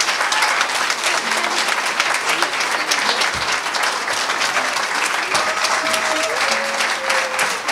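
Audience applauding at the end of a cello quartet's piece, with a few voices calling out.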